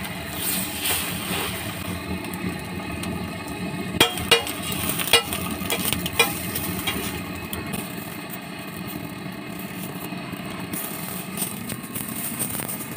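A metal spatula clinking and scraping on a flat steel griddle as an omelet is lifted and folded, with a cluster of sharp clinks about four to six seconds in. Steady street traffic noise runs underneath.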